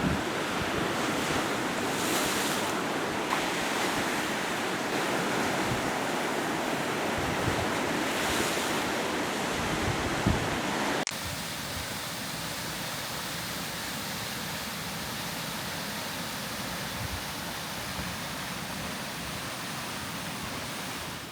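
Lake Ontario waves breaking on the shore, with wind gusting across the microphone. About eleven seconds in, the sound cuts abruptly to a slightly quieter, steadier rush of surf.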